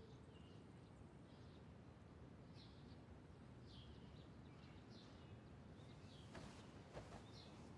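Near silence with faint background birdsong: short, high chirps every half second or so, and two soft taps near the end.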